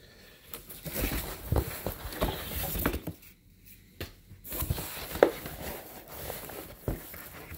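Cardboard box and pulp egg-tray packing being rummaged by hand: rustling and scraping with a few soft knocks, in two spells with a short pause about three seconds in.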